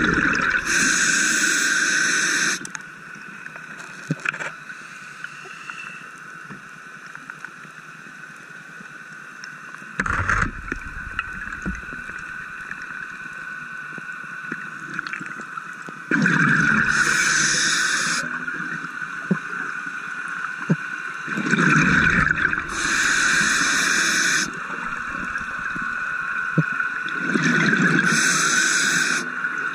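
A scuba diver's regulator underwater, heard through the camera housing: four long bubbling exhalations, at the start and then about every five or six seconds later on. A steady faint whine runs underneath.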